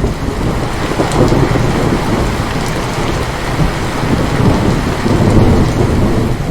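Heavy rain with a long roll of thunder rumbling under it. The rumble rises and falls in swells and eases slightly near the end.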